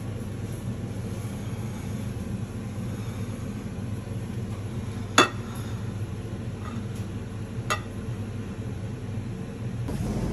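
Two sharp clinks of a ceramic plate or cutlery against it, the louder about halfway through and a weaker one about two and a half seconds later, over a steady low hum.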